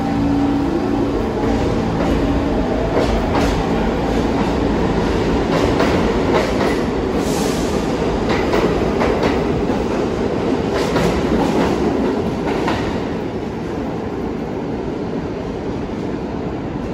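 New York City subway train running through the station, its wheels clacking over rail joints with a steady rumble.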